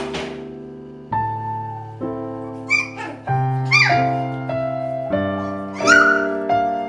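Piano background music in slow sustained chords, with a puppy's short high-pitched yips cutting through about four times, loudest near the middle and about six seconds in.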